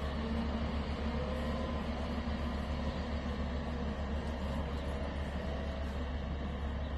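Bulldozer's diesel engine running steadily with a deep rumble.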